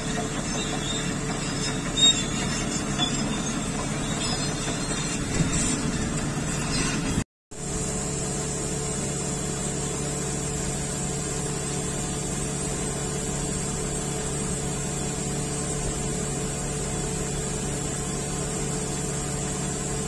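Steady mechanical hum with a high hiss, as compressed air is fed through a hose into a large mining-truck tire. It cuts out for a moment about seven seconds in, then carries on unchanged.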